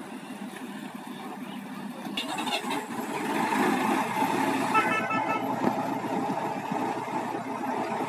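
Heavy vehicle engine running, growing louder about three seconds in, with a horn sounding two quick runs of rapid beeps, one a little after two seconds and one near five seconds.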